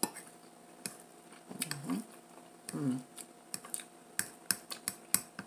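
Metal fork clicking and tapping against a clear plastic food container in short, irregular clicks that come faster in the second half, with two brief hummed 'mm' sounds from a voice.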